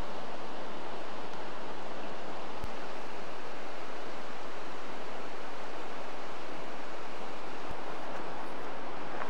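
Mountain river rushing: a steady, even noise of flowing water, with two faint clicks, one about a third of the way in and one near the end.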